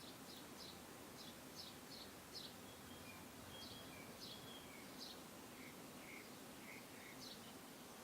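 Faint bird chirping over a steady hiss: a run of short high chirps, then a few lower whistled notes in the second half.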